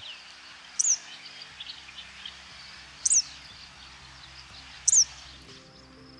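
A wild songbird calling: three short, very high calls, each sweeping steeply downward, about two seconds apart, with a few fainter chips in between.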